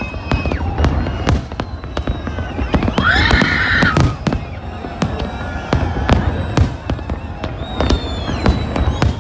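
Fireworks display: a rapid, irregular series of bangs and crackles with thin whistling tones from the shells, and a louder, brighter burst about three seconds in.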